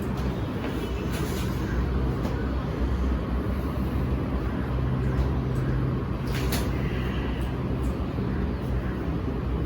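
Steady low rumble of background noise, with a low steady hum in the middle and a few faint short clicks.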